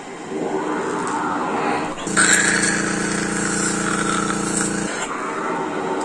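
Cough assist (mechanical insufflation–exsufflation) machine working through a face mask, helping her breathe deeper: a rush of air builds as it pushes air in, then about two seconds in a louder, steady motor hum with hissing air as it pulls air back out, which stops abruptly about a second before the end.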